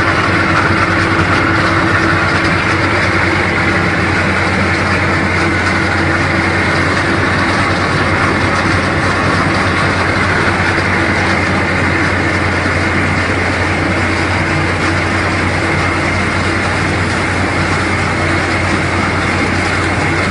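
Small rice milling machine running steadily while milling rice: a constant mechanical hum with a steady higher tone over it.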